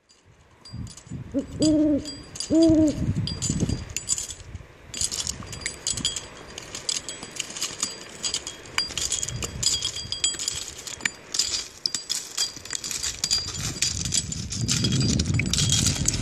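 An owl hooting twice in quick succession, each hoot rising and falling in pitch. After that comes a dense run of faint high-pitched tinkling ticks, and a low rumble comes up near the end.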